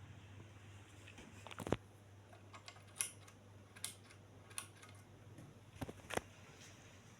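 Ceiling fan motor with a faint steady low hum, broken by about six sharp, irregular clicks, the loudest about a second and a half in.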